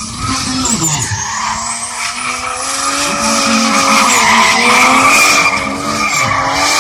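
A drift car's engine running at high revs while its rear tyres squeal and skid through a slide; the engine pitch climbs about a second in, then wavers, and the sound is loudest around four to five seconds in.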